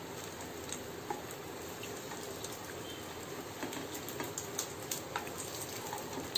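Malpua batter frying in a little hot oil on a non-stick tawa, a steady sizzle. Light clicks of a spatula and steel tongs against the pan come more often in the second half.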